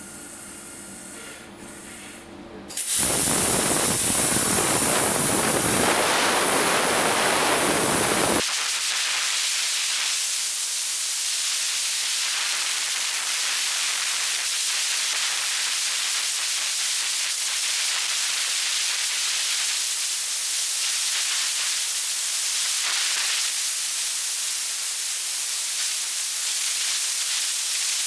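Eastwood Elite 60 plasma cutter on a CNC table: a low machine hum, then the torch fires about three seconds in with a sudden loud, steady hiss. Around eight seconds the hiss turns thinner and higher and runs on steadily as the cut goes on.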